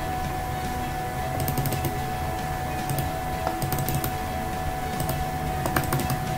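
Small clusters of quick, sharp clicks from a computer mouse, a few at a time every second or so, over a steady hum with a faint high tone.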